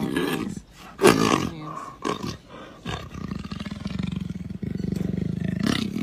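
A jaguar growling in long, low rumbles, with a louder, sharper growl about a second in and a short one about two seconds in.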